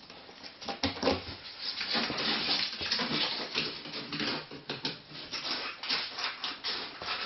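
Ferrets scrabbling and scratching at a cardboard box and a wooden floor: busy scraping and rustling with many small clicks and knocks.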